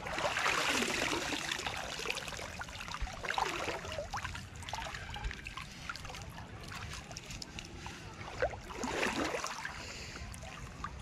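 Water sloshing and swirling around a person wading through a waist-deep canal, with louder surges of splashing about a second in, again a few seconds later and near the end.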